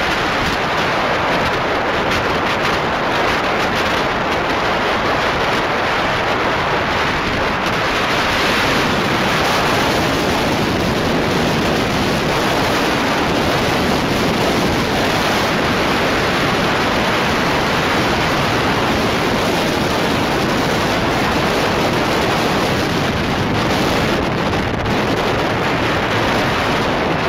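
Steady, loud rushing of wind buffeting the microphone of a moving vehicle, with no engine note standing out.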